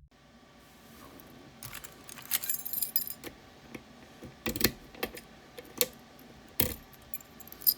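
Small metal parts clinking and jangling as a camlock and its picking tools are handled, a string of sharp irregular clicks with a few louder clanks.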